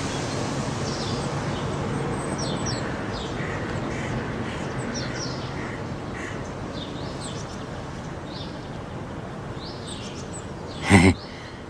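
Small birds chirping repeatedly over a steady hiss, with one loud, harsh call about a second before the end.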